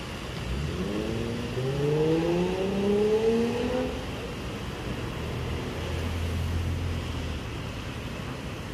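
A motor vehicle's engine rising in pitch as it accelerates for about three seconds, then settling to a low steady hum, over a constant background hiss.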